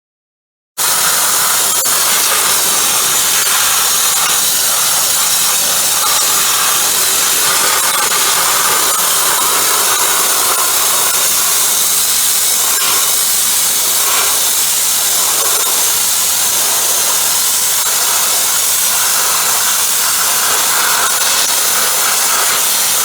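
ST555 wet sandblaster on a 200-bar pressure washer, blasting a jet of water and sand at a surface as a loud, steady hiss that starts abruptly about a second in.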